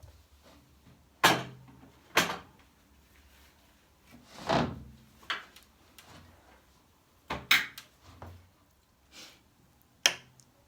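A series of sharp knocks and bumps from drawers and cupboard doors being opened and shut, with a longer sliding sound about halfway through.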